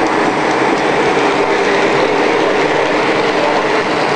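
Lionel model train running on the layout's track, a steady rolling and running noise from its wheels and motor.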